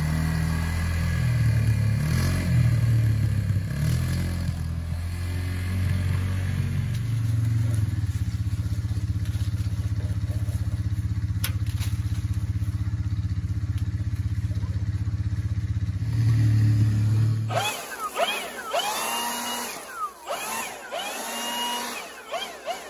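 ATV engine running: its pitch rises and falls for several seconds, then holds steady, swells once more and cuts off about three quarters of the way through. After it stops comes a series of short chirps, each rising and falling in pitch.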